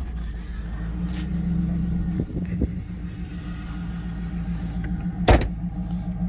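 The 5.7-litre LS1 V8 of a 1998 Pontiac Trans Am WS6 idling steadily through its factory stock exhaust, not really loud. A single sharp thump about five seconds in, the car door being shut.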